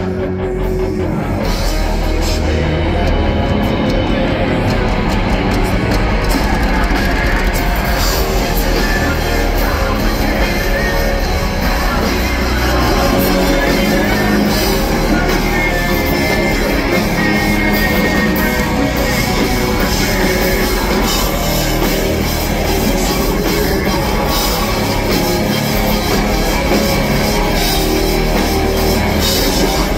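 A rock band playing loud and steady live: electric guitar and drum kit, with a singer's voice at times. Heard from the audience through a phone microphone.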